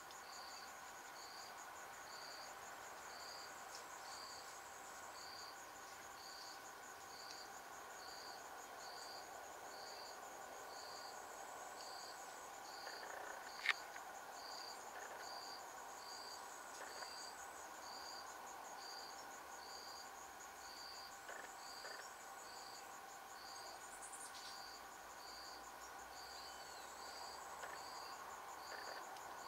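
Insects calling: a high, even chirp about once a second over a steady high-pitched buzz, with a lower steady drone beneath. A single sharp click about halfway through.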